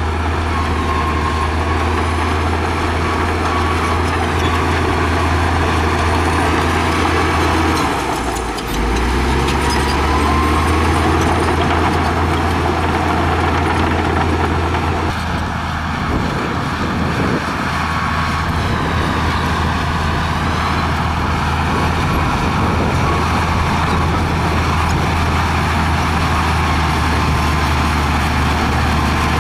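Crawler bulldozer's diesel engine running steadily under load as the blade pushes a pile of dirt. The engine note dips briefly about eight and a half seconds in, then carries on.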